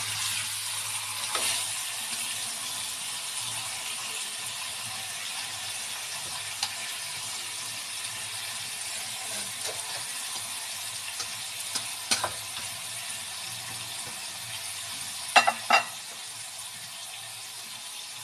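Butterflied marinated chicken with lemongrass stalks sizzling steadily in a wok. Now and then metal tongs clink against the pan, with two sharp clinks near the end being the loudest.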